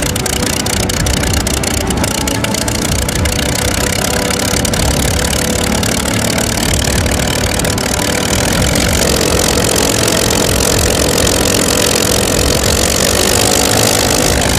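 Bell P-39 Airacobra fighter's Allison V-12 engine running steadily under loud propeller and air noise as the plane comes in to land. A steadier hum joins about nine seconds in.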